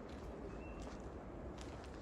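Faint footsteps of a person walking at an even pace over a steady low outdoor background hum, with a brief thin high tone about half a second in.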